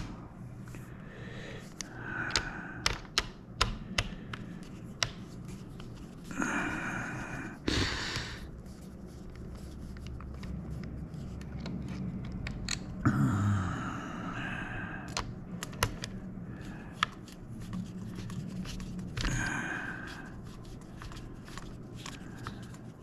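Plastic parts of a joystick being handled during disassembly: scattered small clicks and taps, with a few longer scraping passages.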